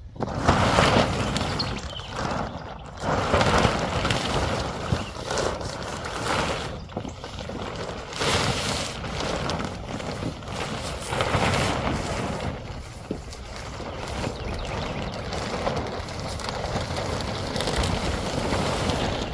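Wind buffeting the microphone in gusts, rising and falling.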